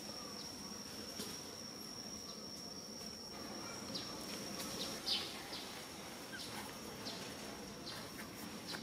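Outdoor ambience with a steady high-pitched insect drone, a single unbroken whine. Short high chirps are scattered through it, the loudest about five seconds in.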